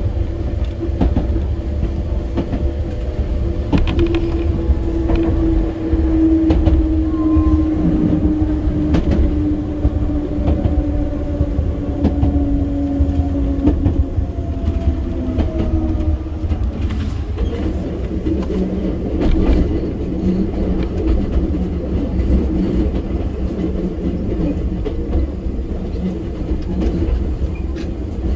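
Enoshima Electric Railway Type 300 electric train running, heard from inside the car: a steady low rumble with wheel clicks over the rail joints. A motor whine falls slowly in pitch over about ten seconds, then gives way to a lower steady hum.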